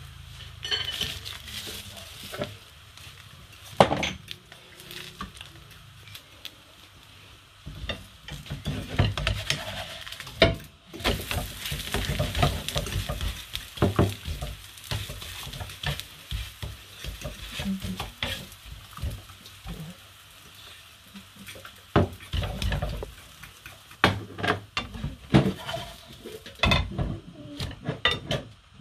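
A pancake sizzling in a frying pan, with a spatula scraping and knocking against the pan and a spoon clinking in a bowl as something is stirred. The sharpest knocks come about four seconds in and again near the end.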